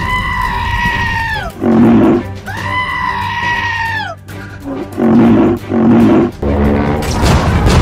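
Two long, high animal-like cries, each held for about a second and a half and falling off at the end, voiced for a cartoon creature. Background music with heavy low thumps runs underneath.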